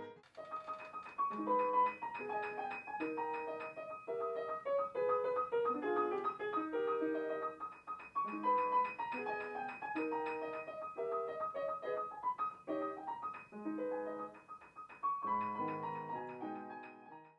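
Yamaha CFX concert grand piano played in a fast passage, one high note repeated again and again above a moving lower melody.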